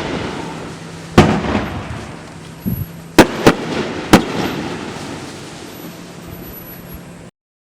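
Consumer aerial fireworks going off: about four sharp loud bangs, plus a smaller one, over the first four seconds, each followed by a fading noisy tail. The sound cuts off suddenly about seven seconds in.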